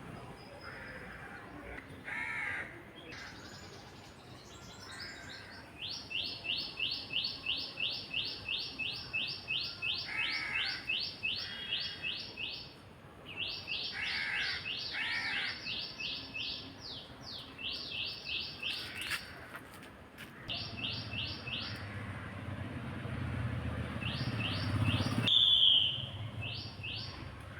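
Garden birds calling: one bird repeats a quick series of short, high notes, about four a second, in long runs, while lower, harsher calls break in now and then. A low rumble comes up in the second half.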